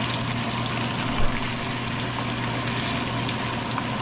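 Blackening-seasoned snapper fillets frying in hot olive oil in a pan: a steady hissing sizzle, with a low steady hum underneath and a brief thump about a second in.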